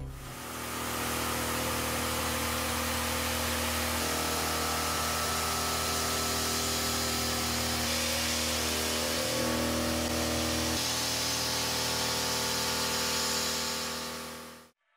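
Indexable-insert end mill, a 20 mm BIG Daishowa Fullcut Mill, cutting a slot in S55C carbon steel: a steady machining whine over a hiss of cutting and chips. Its tone changes a few times and it fades out near the end.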